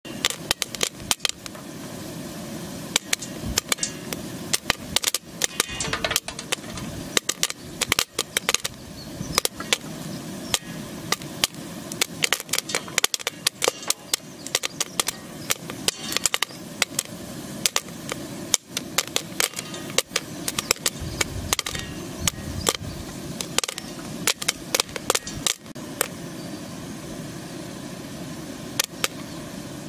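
Popcorn kernels popping in a hot metal pan: irregular sharp pops, several a second, over a steady hiss.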